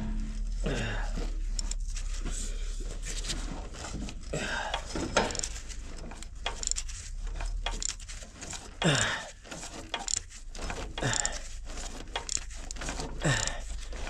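Ratchet and long extension clicking and clinking on a Caterpillar engine-turning tool as a seized Cat 3406B diesel is cranked over by hand, the engine now just free enough to move. Irregular metallic clicks throughout, with a few short sounds sliding down in pitch about a second, five, nine and thirteen seconds in.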